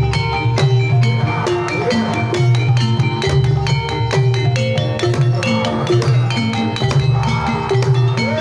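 Banyumasan gamelan music for tayub: pitched metal keyed instruments playing a steady, repeating melody over regular hand-drum strokes.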